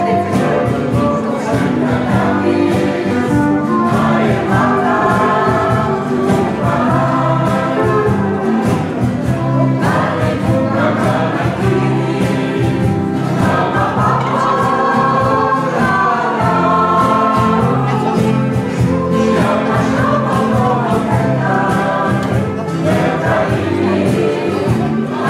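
Indisch (Indo-Dutch) choir of men and women singing a song together, backed by a small band of guitars, steel guitar, bass guitar and percussion.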